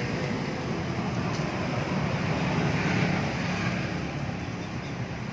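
Yamaha RX-King's two-stroke single-cylinder engine running, a steady drone that swells a little two to three seconds in.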